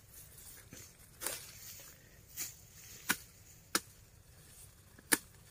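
Sharp chops of a hand blade cutting through napier grass stalks at the base: about five irregular strokes, the loudest about five seconds in.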